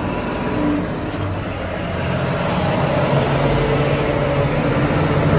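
Steady low rumble of a road vehicle running, slowly growing louder.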